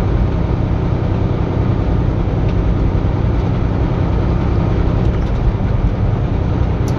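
Steady low rumble of a semi-truck's diesel engine running, heard from inside the cab.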